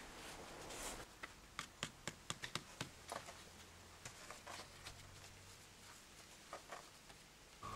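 Faint scratching and clicking of a large flat stone being shifted and pressed down into a mortar bed on a stone wall. There is a quick run of clicks about a second in, and a few more later.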